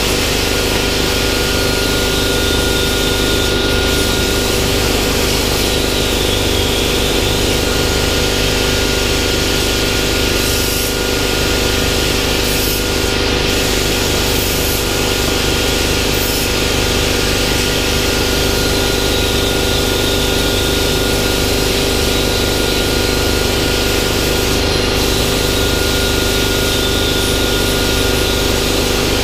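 Hypertherm 65 plasma cutter on a CNC table cutting steel sheet: a steady loud hiss of the arc and air, with a faint high whine that slowly wavers in pitch over a steady machine hum.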